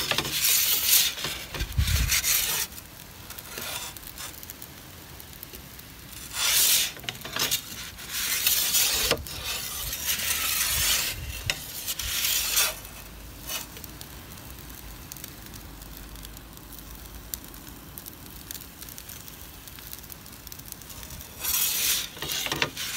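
Long-handled metal turning peel scraping across the pizza oven's stone floor as a pizza is turned and repositioned in an Ooni Koda gas pizza oven, in a series of short scrapes.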